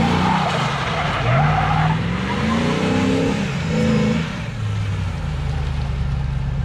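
A 1998 Chevrolet Silverado pickup driving off and accelerating, its engine pitch rising twice, then settling to a steady cruise about four seconds in. A loud hiss runs through the first two seconds. The truck has a newly fitted Posi limited-slip rear differential and is running without any noise from it.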